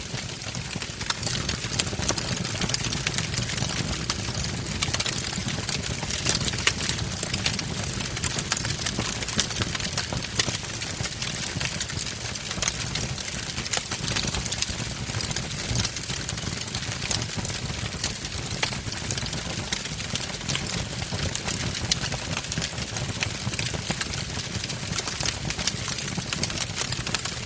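Wood fire burning in a fireplace: a steady low rumble of flame with many sharp crackles and pops from the burning logs.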